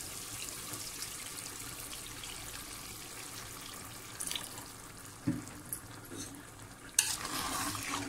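Water pouring from a jug into a pot of meat-and-potato curry, a steady splashing stream that tapers off after about four seconds. A few light knocks follow, then a spoon stirring the thinned gravy in the pot near the end.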